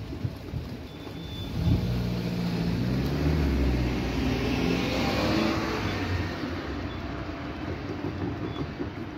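A car driving past close by: its engine comes in sharply about a second and a half in, its pitch sinking slightly as it passes. Tyre noise then swells and fades as it pulls away, over steady background road traffic.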